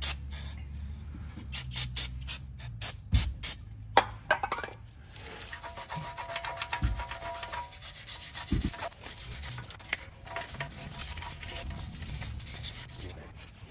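Aerosol brake cleaner sprayed in several short bursts onto a rusty steel wheel hub over the first few seconds, then a small wire brush scrubbing back and forth over the hub face to clean off rust and dirt before a new rotor goes on.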